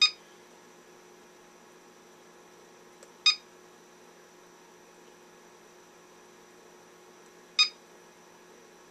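Cellpro PowerLab 8 battery charger beeping three times, one short electronic beep each time its button is pressed to scroll through the display screens, a few seconds apart.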